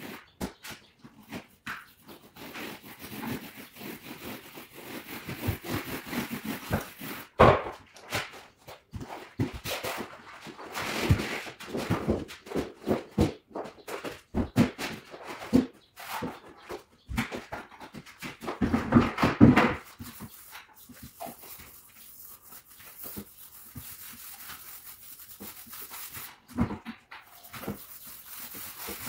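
Intermittent rustling and crinkling of a wallpaper sheet being handled and folded, with scattered sharp knocks. The loudest knock comes about seven seconds in, and a dense stretch of rustling about two-thirds of the way through.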